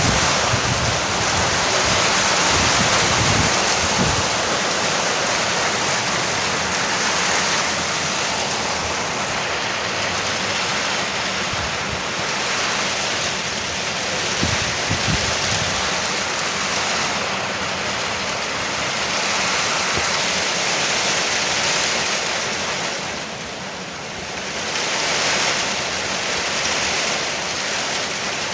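Heavy rain drumming steadily on a porch roof, swelling and easing, with a brief lull a little after twenty seconds. Low rumbles come in during the first few seconds and again around the middle.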